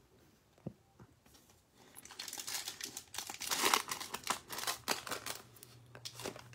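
Foil wrapper of a Panini Prizm basketball card pack crinkling and tearing as it is ripped open by hand, starting about two seconds in. Near the end it gives way to lighter rustling and clicks as the cards are slid out.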